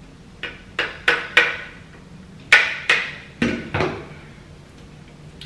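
Hair crimper's hot plates clacking as they are closed and opened on the hair: about eight sharp clacks, mostly in quick pairs.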